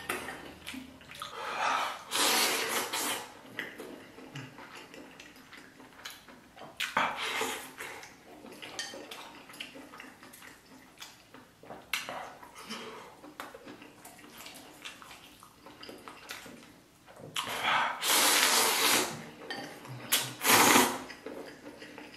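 A person slurping noodles and broth from a bowl, in four long slurps, the loudest two near the end, with quieter chewing and small clicks between them.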